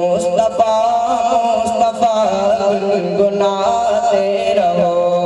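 A boy's voice singing a naat into a microphone, holding drawn-out, wavering notes with no clear words, over a steady held drone. The wavering melody ends near the end while the drone carries on.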